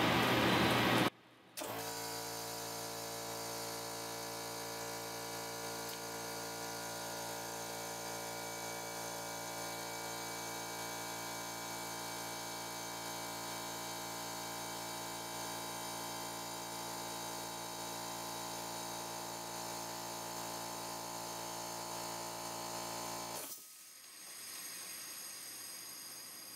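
A steady electric motor hum with a whine, made of many even pitches. It starts about a second and a half in and cuts off suddenly a few seconds before the end.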